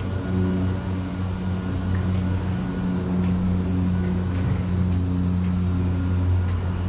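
Loud, steady low mechanical drone, like a motor running, with a deep pitched hum over rushing noise; it cuts in and out abruptly.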